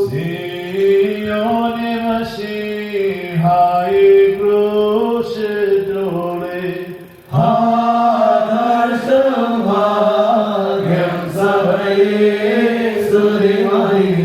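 Orthodox liturgical chant: held, melodic sung phrases, in two long lines with a brief break about seven seconds in.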